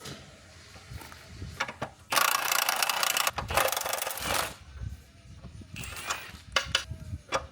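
Two bursts of a power tool, each about a second long, a little over two seconds in, while the upper control arms are unbolted from the front suspension. Scattered knocks and clanks of parts and tools come before and after the bursts.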